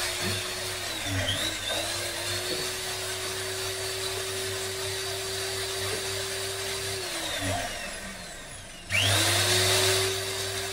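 Electric motor and crank drive of an opened-up 0810-type 5 kg demolition breaker, run on the bench with its cylinder bare: a steady motor whine that dips briefly about a second in, runs down and stops near eight seconds, then starts again, louder, near nine seconds. The drive is running fine with no trouble, the hammering fault lying in the worn striker O-ring.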